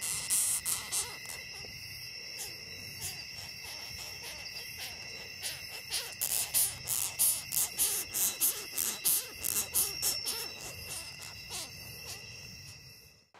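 Longhorn beetle stridulating: a series of short, sharp squeaks, about four a second and loudest from about six to ten seconds in, over a steady high insect trill.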